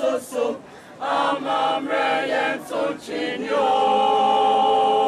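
A mixed choir of boys and girls singing in short rhythmic phrases, then holding one long chord from about three and a half seconds in.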